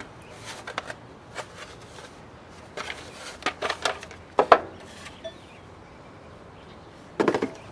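Doorbell kit parts being handled: scattered light clicks and clatters, the loudest about four and a half seconds in and a short cluster near the end.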